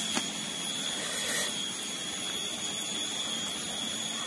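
Steady, even hiss with a faint high-pitched whine held on one note, and no distinct events.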